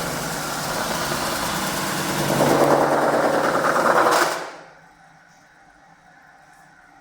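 CNC metal spinning machine forming a 1.5 mm DKP steel sheet blank, with steady grinding forming noise. The noise grows louder a little after two seconds in, then dies away quickly about four seconds in, leaving a faint machine hum.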